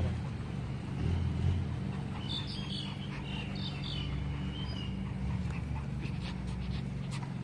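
A Cavalier King Charles spaniel and a Pomeranian playing, with a run of short high-pitched whines about two to five seconds in, over a steady low hum.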